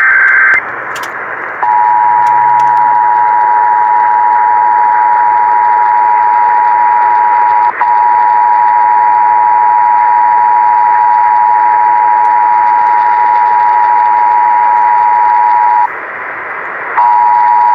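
Emergency Alert System two-tone attention signal received on AM radio: two steady tones sounded together over radio hiss, announcing an EAS required monthly test. A brief higher tone comes first, and the two-tone signal drops out for an instant about halfway and for about a second near the end before resuming.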